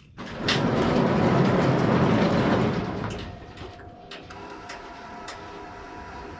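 Wood-Mizer portable band sawmill machinery running: a loud rattling rumble for about three seconds, then a quieter steady hum.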